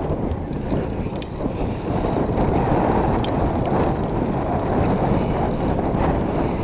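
Mountain bike rolling along a paved trail, with a steady low rumble of wind on the microphone and tyre noise. A few light clicks and rattles from the bike come through, one about a second in and another near the middle.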